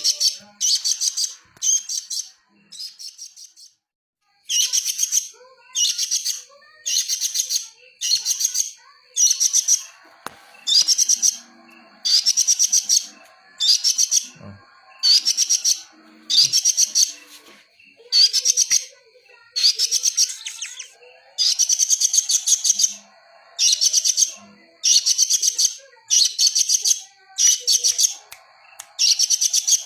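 A bird gives short, high-pitched chattering bursts of rapid notes, repeated about once a second. The calls are briefly softer and pause a few seconds in, then resume loud. A faint steady high tone runs behind them.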